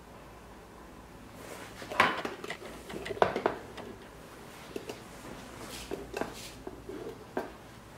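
The hard plastic case of a handheld VLP-2000 laser power meter being handled and set down on a table, giving sharp knocks about two seconds in and again around three seconds in, followed by lighter clicks as its front-panel buttons are pressed.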